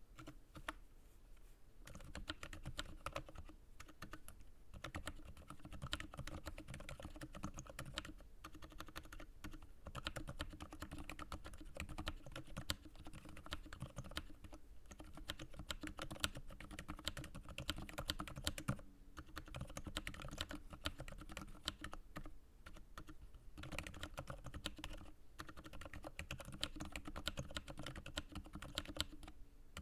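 Continuous typing on a small mechanical keyboard with lubed Cherry MX Silent Black linear switches: a dense run of soft, damped keystrokes that picks up about two seconds in and pauses briefly now and then.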